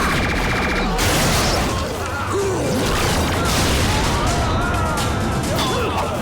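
Action-show battle sound effects over a dramatic background score: a rapid rattling burst of weapon fire in the first second, then explosion blasts.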